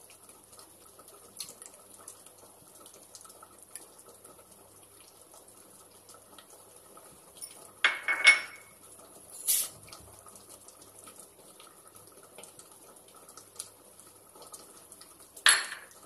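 Steady low hiss of water heating in an aluminium pressure cooker on a gas burner. About halfway through comes a few sharp metal clinks of kitchen utensils against pots, one ringing briefly, and another clink near the end.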